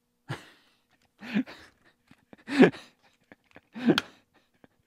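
A man chuckling in four short, breathy bursts about a second apart.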